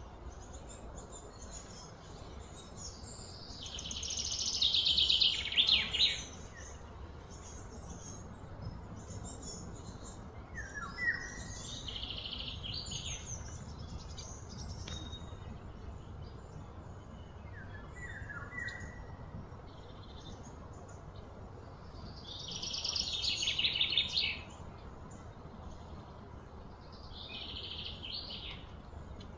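Wild birds calling: two louder, rapid trills of two to three seconds each, a few seconds in and again near the end, among short falling chirps and scattered high calls, over a steady low outdoor rumble.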